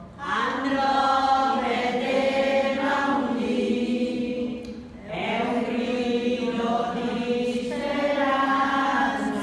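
A group of women singing together unaccompanied, in slow held phrases like a chanted hymn, with a breath between phrases about five seconds in.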